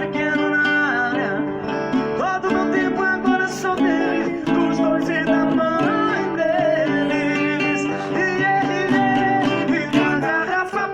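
Acoustic guitar playing a sertanejo song, strummed and picked, with a singing voice over it.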